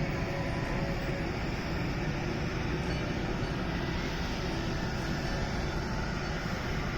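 Steady low rumble of a ride boat's motor running, with a faint steady hum over it.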